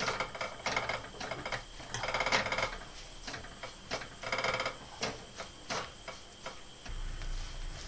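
Wooden spatula stirring ghee-roasted ragi flour in a steel kadhai: repeated scrapes against the pan, with sharp ticks and knocks in between.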